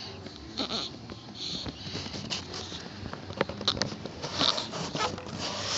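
Soft irregular pats and cloth rustling from a hand patting and rubbing a baby's back to bring up a burp, a series of short muffled taps and brushing sounds.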